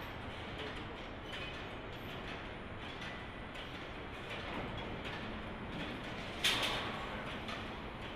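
Car body-shop assembly line: a steady mechanical hum with scattered short clicks and clanks from the welding robots and their clamps, and one louder sudden burst about six and a half seconds in.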